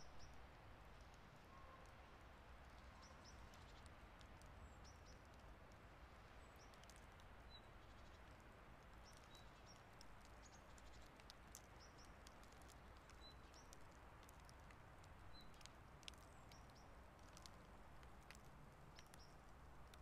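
Near silence: faint outdoor ambience in light snowfall, a steady low hiss with scattered soft ticks and a few faint high chirps.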